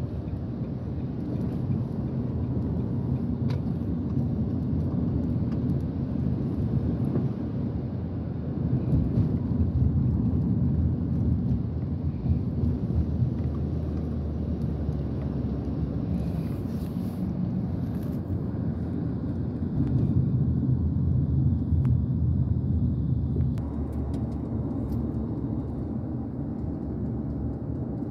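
Steady low rumble of engine and road noise heard from inside a moving vehicle, swelling a little now and then.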